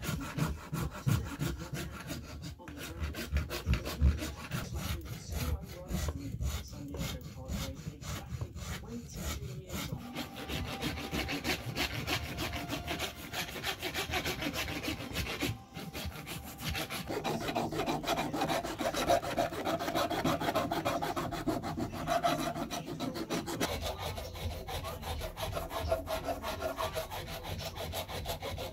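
A knife shaving strokes off a wooden knife sheath blank. From about ten seconds in, a flat file rasps back and forth over the sheath's wood and stacked birch bark.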